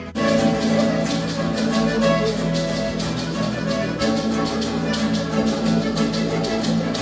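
Live Mexican music from a small mariachi-style group, strummed acoustic guitar with accordion, playing a steady, lively rhythm. It cuts in suddenly just after the start.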